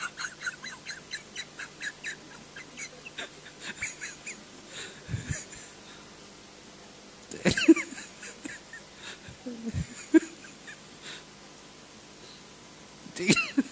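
A man laughing into a microphone: a run of quick, rhythmic ha-ha pulses over the first few seconds, then a few louder laughs whose pitch bends, around the middle and near the end.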